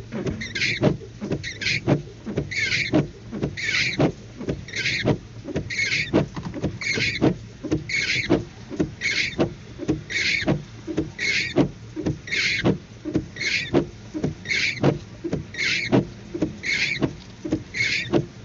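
Car windshield wipers sweeping back and forth over wet glass, each stroke a squeaky swish with a knock, about one stroke a second.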